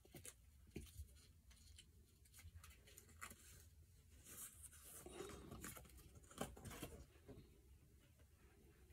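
Faint rustling and scattered small clicks of hands handling and combing a wig, close to near silence.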